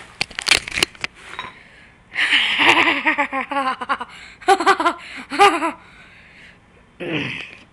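A person giggling and laughing in several short bursts, the pitch pulsing in quick repeated beats, with a few sharp clicks near the start.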